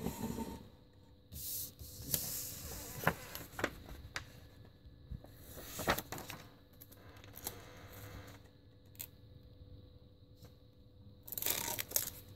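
A vinyl rim-stripe decal and its paper backing being handled and peeled apart: stretches of crinkling and rustling with sharp little clicks, after a short rub at the start as the wheel is turned.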